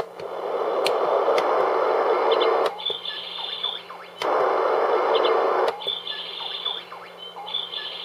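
Electronic white noise machine switching between its sound programs: a steady rushing hiss, its Ocean setting, which is more like plain white noise, twice for a second or two, alternating with stretches of chirping birdsong from its Rain Forest setting, with a click at each change.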